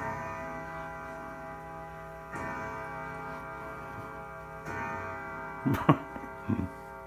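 Grandfather clock striking the hour: slow, evenly spaced strikes about every two and a half seconds, each note ringing on and overlapping the next. Near the end two short, loud sounds cut in over the ringing.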